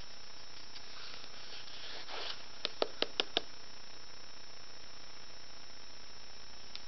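Soft scratching of a pen on paper, then a quick run of five light clicks, over a steady hiss.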